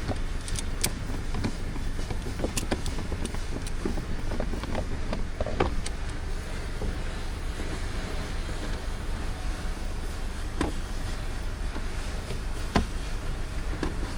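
Scattered clicks and knocks of hand tools and metal parts during hydraulic pump repair work, over a steady low rumble; the sharpest knock comes near the end.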